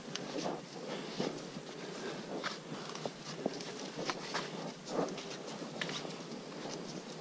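Footsteps of hikers on a dirt forest trail: an uneven series of soft steps and scuffs, a few each second, over a steady hiss.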